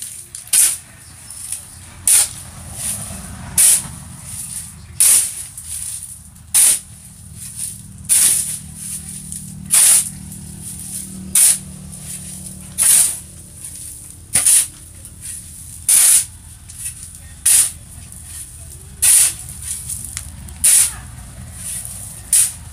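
A shovel scraping across a concrete floor as it turns over wet, dark soil, in short hissing strokes about every one and a half seconds at a steady working pace.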